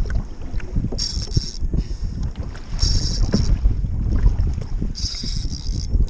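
Wind buffeting the kayak-mounted camera's microphone over water moving around the kayak, with short hissing bursts about every two seconds.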